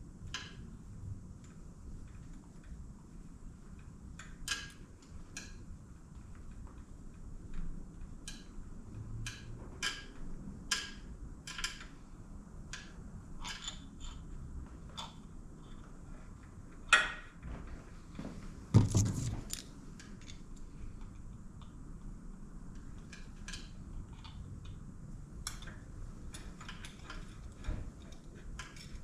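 Hand tools working on metal hardware: irregular light metallic clicks and clinks, with two louder clanks about two-thirds of the way through.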